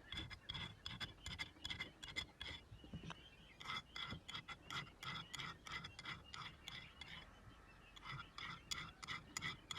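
Faint, irregular scratching and light metallic clicks of hand work on the old air pump's small parts, with a pause about seven to eight seconds in.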